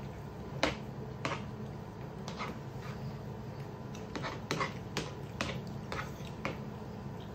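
Eating sounds from rice being eaten fast: irregular sharp clicks and smacks of a spoon on plates and of chewing mouths, over a steady low hum.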